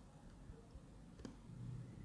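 Near silence: faint room tone, with one soft click a little past a second in.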